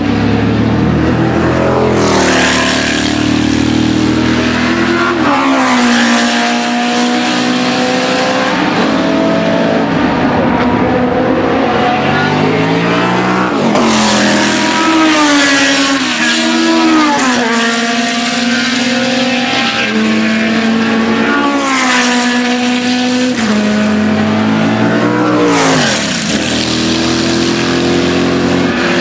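Historic sports-prototype racing cars passing close by one after another at racing speed. Their engines overlap, and about six times one goes past with its pitch dropping sharply.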